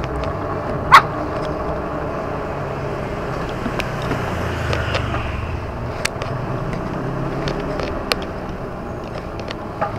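Steady road traffic noise, motor vehicles running, with one short, sharp, loud sound about a second in.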